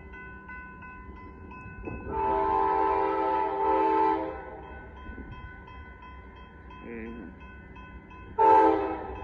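Amtrak passenger locomotive horn sounding for a grade crossing: one long chord-like blast about two seconds in, then a short, louder blast near the end. Underneath it the crossing warning bell dings steadily at a few strikes a second.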